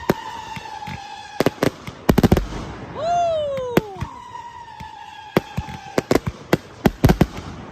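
Fireworks going off: sharp bangs and pops, with a dense cluster of loud bangs about two seconds in. Whistling effects sound over the bangs: a high whistle that slides slowly down over about two seconds, heard twice, and a lower whistle that falls steeply about three seconds in.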